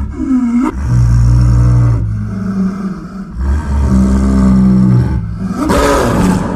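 Leopard growling and roaring: a series of deep, drawn-out growls, each lasting a second or more, with a shorter, harsher call near the end.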